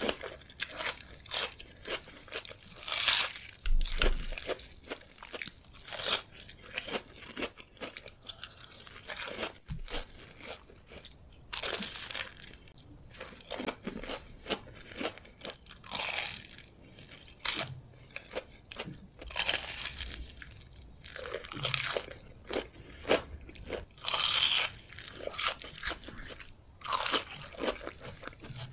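Close-miked crunching and chewing of breaded, deep-fried cheese sticks and cheese rings, the crisp crumb coating crackling with each bite. Irregular crunches come every second or so throughout.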